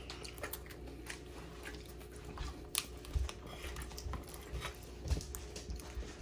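Crunchy deep-fried egg rolls being bitten and chewed: irregular crisp crunches and clicks, a few louder ones around the middle.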